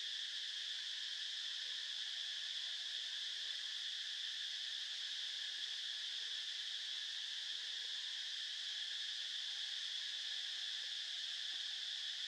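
Steady, unbroken insect chorus: a continuous high-pitched drone that neither rises nor falls.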